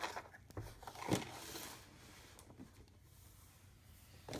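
Cardboard-and-plastic toy boxes being handled and moved across a wooden table: a few short knocks and scrapes, the loudest about a second in, followed by a brief rustle.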